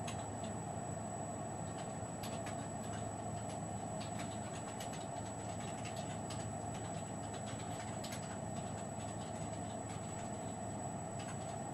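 A steady background hum with faint, irregular clicks scattered through it, the light taps of a plastic stylus on a PDA's touchscreen.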